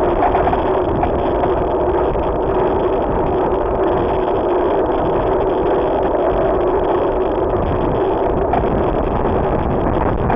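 Steady wind and rolling noise on the microphone of a camera carried on a moving bicycle, a constant drone with no distinct events.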